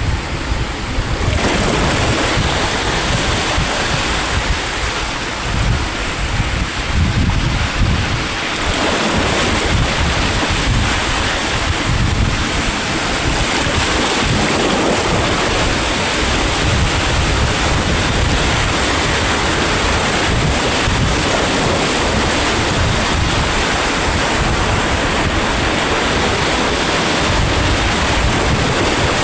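Sea waves breaking and washing ashore: a continuous surf hiss that swells about a second and a half in, with wind buffeting the microphone in a low, uneven rumble.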